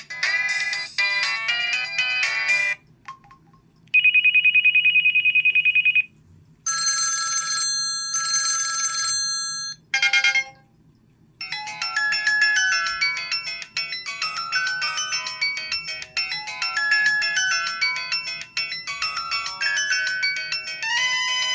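Built-in ringtones of a Samsung Juke phone previewed one after another, each cut off after a few seconds: a short melody, a fast trilling ring, a held chord-like tone, a brief chime, then a longer melodic tune of quick notes.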